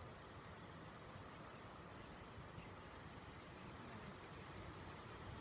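Faint, high-pitched cricket-like insect chirping in short groups of a few pulses, over a low background rumble.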